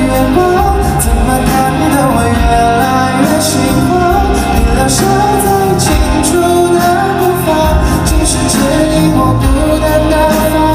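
Pop song with a singing voice over a steady drum beat.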